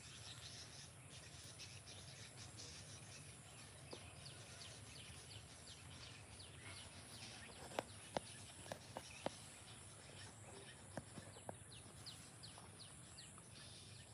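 Near silence: a faint rural background of chirping insects and birds, with a few sharp light clicks about eight seconds in and again around eleven seconds.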